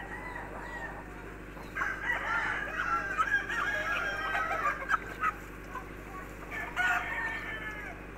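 A rooster crowing, one long call from about two seconds in to five seconds, and a shorter call near the end, over a steady low hum.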